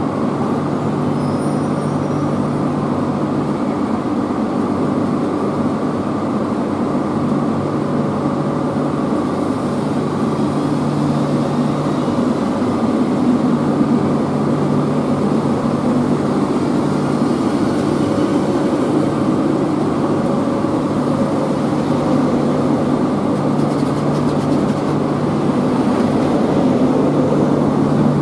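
Renfe Series 470 three-car electric train pulling slowly out of a station, a steady running noise with a low hum, growing slightly louder near the end.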